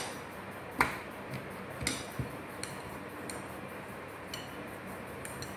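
Wooden rolling pin knocking and clicking against a round rolling board as paratha dough is rolled out thin. There is a sharp knock at the start and another about a second in, then lighter clicks every half second to a second.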